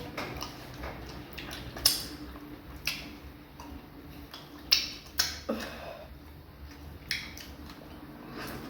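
Close-miked eating sounds: wet mouth smacks and clicks from chewing fufu and vegetable soup, a handful of sharp smacks spread irregularly over a quieter background of chewing.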